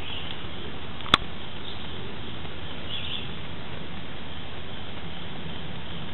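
Outdoor ambience of steady background noise with a few faint bird chirps, and one sharp click about a second in.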